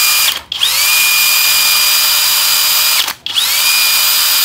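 FLEX 24V FX1171T brushless drill/driver running free with no load in repeated trigger pulls. Each time the motor's whine spins up quickly to a steady high pitch and winds down when the trigger is let go, with short stops about half a second in and about three seconds in.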